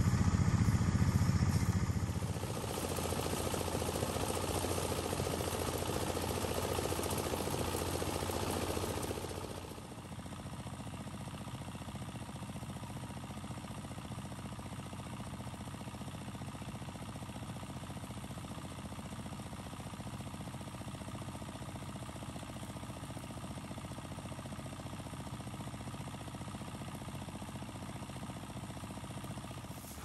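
Small diesel engine of a rice thresher running steadily. For roughly the first ten seconds it is louder, with a rushing noise on top, then it settles to a steadier, quieter run.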